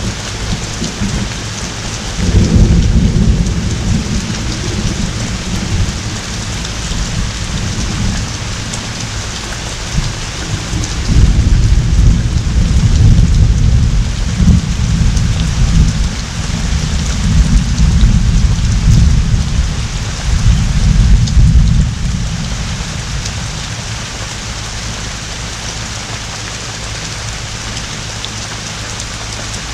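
Heavy rain pouring steadily, with thunder rumbling: one rumble about two seconds in, then a long rolling peal of thunder lasting roughly ten seconds through the middle, after which only the rain goes on.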